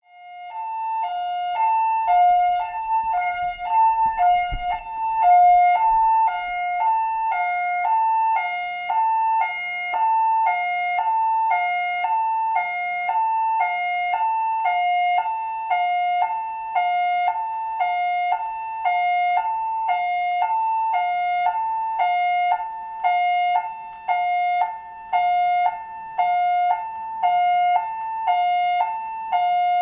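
Police two-tone siren sounding continuously, switching back and forth between a higher and a lower note in a steady hi-lo pattern. A faint low rumble sits under it a few seconds in.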